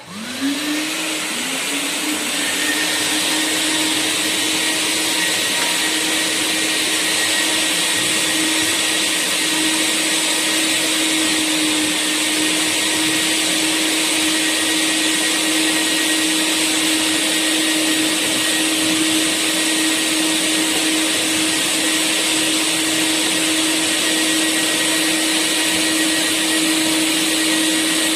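Three-motor industrial vacuum cleaner switched on, its motors spinning up in stages over the first couple of seconds, then running steadily with a loud whine and rush of air.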